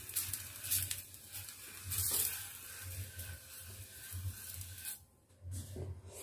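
Oil sizzling on a hot iron tawa as it is rubbed over the surface with an oil-dipped piece of eggplant, greasing the griddle for the next pancake. The hiss swells about two seconds in and dips briefly about five seconds in.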